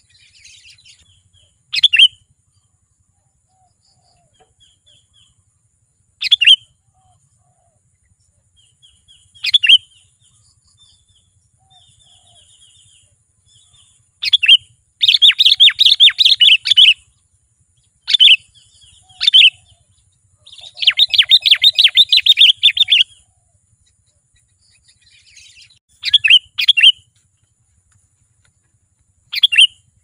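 Sooty-headed bulbul singing: loud short chirping phrases every few seconds, with two runs of rapid chattering notes of about two seconds each near the middle. Softer chirps fill the gaps between phrases.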